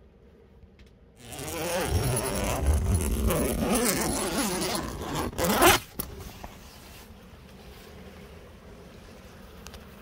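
The zipper of a Kodiak Canvas truck tent being unzipped in one long rasping pull of about four seconds, ending in a sharp final rasp. A faint steady hush follows.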